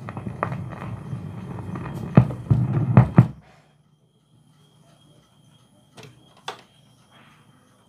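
Turntable at the end of a record side: low rumbling groove noise with several clicks and clunks as the tonearm lifts and swings back to its rest. After that it is almost quiet, with a faint hiss and two small clicks.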